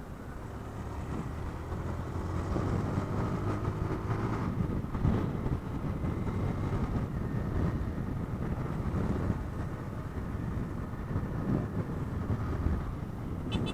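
Motorcycle being ridden on the road: engine hum mixed with wind and road rumble, growing louder about two seconds in as it picks up speed.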